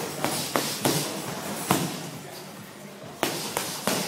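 Gloved strikes landing on Thai pads in pad work: a run of sharp smacks, three quick ones in the first second, one alone, then three more near the end after a short pause.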